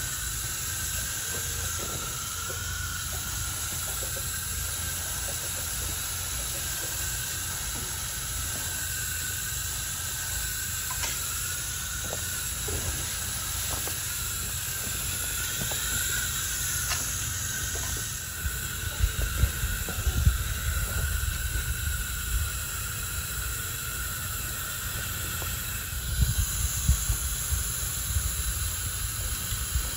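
Garden hose spray nozzle hissing steadily as water sprays onto straw and compost, with bouts of low rumbling about two-thirds of the way through and again near the end.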